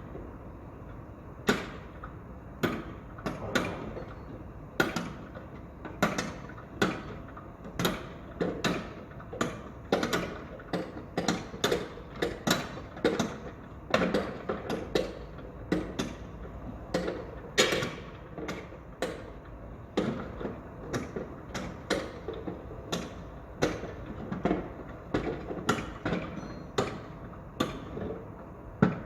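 Construction-site work sounds: sharp knocks and bangs at an irregular pace, about one or two a second, over a steady low background noise.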